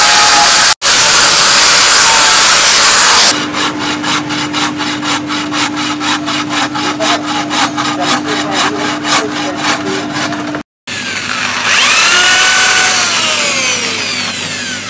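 Angle grinder with a sanding disc grinding a steel blade in a steady run for about three seconds. Then a hacksaw cuts through a wooden pole in quick, even strokes, and near the end a power drill whines as it bores into the end of a wooden handle, its pitch rising and falling.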